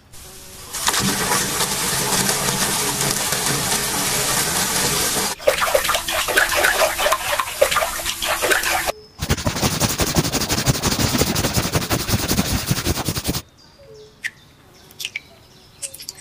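Water gushing into a metal basin of rusty gun parts, then hands splashing and swishing the parts in the soapy water, with a second stretch of rushing water after it. All three stop abruptly, and near the end only a few light clicks remain.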